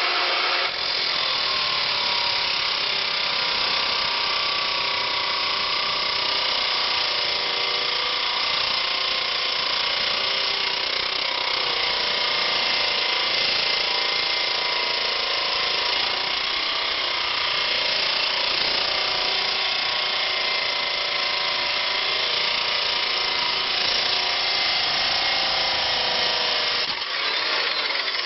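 Home-built 12-volt battery-powered angle grinder with a home-wound motor running steadily at speed: a continuous motor whine over a hiss.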